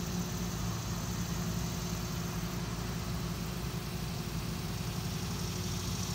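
Tow truck engine idling steadily, a low even hum.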